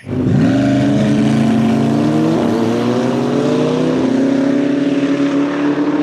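Race car engine running at high revs, starting abruptly, with a steady note and one tone climbing slowly over the first four seconds.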